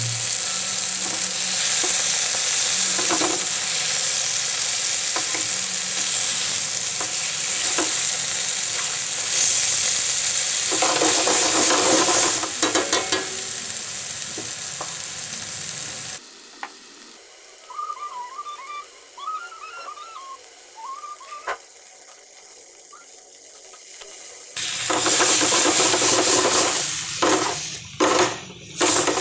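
Octopus and vegetables sizzling as they are stir-fried in a wok over a gas flame, with the spatula scraping and tossing the food in bursts of quick strokes. For several seconds in the middle the sizzling gives way to a quieter stretch with a faint wavering tone, then the frying and stirring resume.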